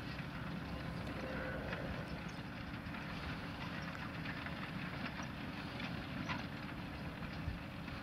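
Fendt tractor's engine running steadily under load as it pulls a plough through the soil, a low rumble, with a few short bird calls over it.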